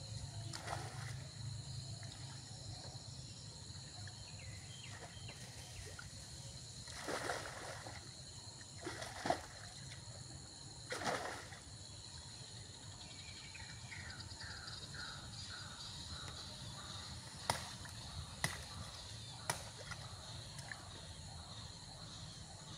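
Water splashing and sloshing three times in the middle as a man wades waist-deep in a river and works with his hands under the surface, over a steady high insect drone. A few sharp clicks come near the end.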